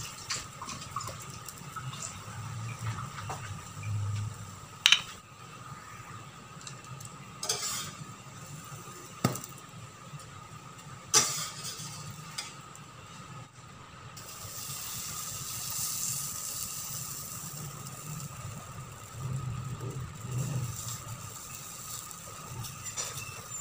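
Pancake batter frying with a light sizzle in an oiled stainless steel frying pan. A metal spatula clinks and scrapes against the pan several times, with a few sharp knocks, and the sizzle grows louder for a few seconds past the middle.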